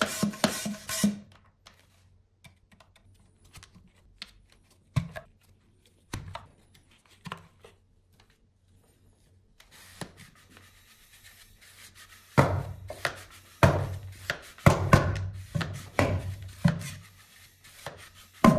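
Hard plastic toy blaster parts clicking and clacking as they are handled and fitted together, with scattered clicks at first and a run of louder knocks in the last third.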